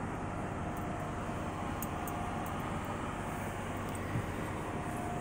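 Steady low rumble and hiss of a parked semi-truck's cab, with a faint steady whine above it and one small bump about four seconds in.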